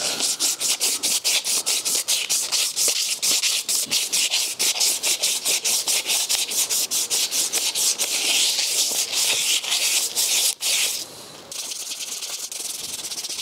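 Fine 1000-grit sandpaper, wetted with WD-40, rubbing back and forth around the copper commutator of a starter motor armature to clean the debris off it. The strokes are rhythmic, about four a second, and turn quieter and lighter about eleven seconds in.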